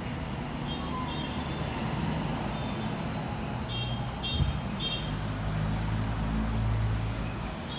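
Steady low rumble of road traffic, swelling as a vehicle passes in the second half. Three short, high-pitched chirps come in quick succession around the middle.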